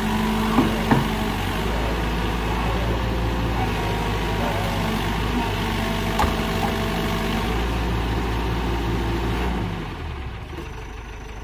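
Sumitomo SH120 A1 excavator's diesel engine running steadily, with a few sharp knocks about a second in and again midway; the engine note drops and quietens near the end.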